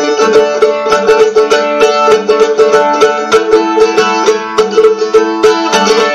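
A-style mandolin in open D tuning (A-D-A-F#) picked in a quick, even rhythm, about five or six strokes a second, the open strings ringing on as a drone under the changing fretted notes.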